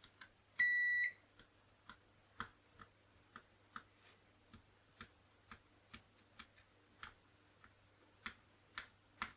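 A multimeter's continuity tester gives one short, high beep about half a second in. Then comes a run of small sharp clicks, about two a second, as the test probe taps along the keyboard connector pins.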